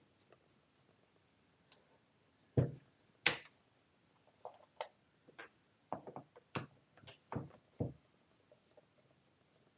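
Handling noise from a rotary hammer drill's casing being taken apart by hand with a screwdriver: a dull knock, a sharp click a moment later, then a run of lighter taps and clicks.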